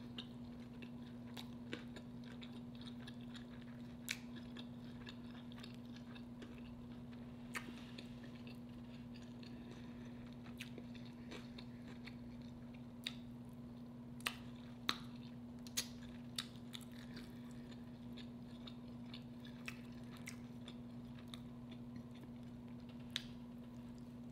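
Close-miked chewing of a smoked burger: scattered sharp wet clicks from the mouth, thickest about halfway through, over a steady low hum.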